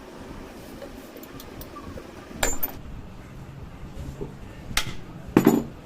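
Three sharp metal knocks from hand tools striking pump parts, about a second and a half to two and a half seconds apart, the last the loudest.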